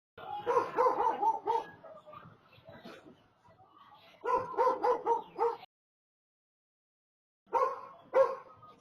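A dog barking in quick runs: about six barks, a pause, about six more, then two more near the end.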